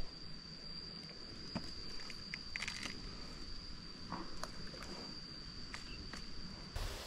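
Quiet outdoor ambience with a steady, high-pitched insect trill that cuts off near the end, and a few faint clicks and taps.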